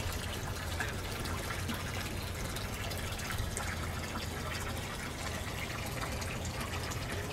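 Steady trickling, rushing water noise with a low hum underneath.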